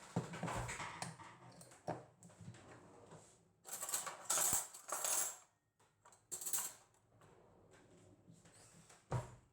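Small hard objects clinking and rattling as they are handled, in several short irregular bursts, with a sharp knock about two seconds in and another near the end.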